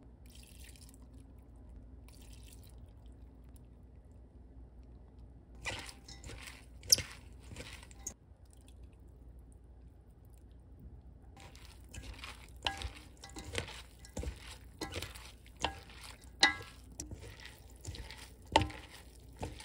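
A wooden spoon tossing dressed shredded cabbage in a stainless steel mixing bowl, knocking and clinking against the metal roughly once a second through the second half. Earlier, a few sharp clinks, one loud about seven seconds in.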